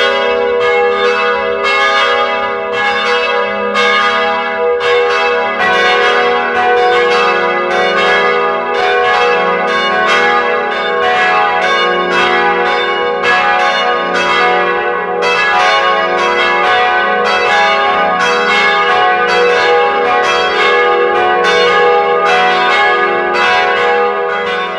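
Church bells pealing: a steady run of strokes, about two a second, with the ringing of each bell overlapping the next.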